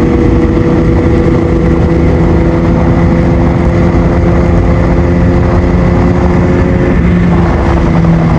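Kawasaki ZX6R inline-four through a Yoshimura exhaust, running under steady throttle while riding. The engine note climbs slowly and then shifts about seven seconds in, over a constant rush of wind and road noise.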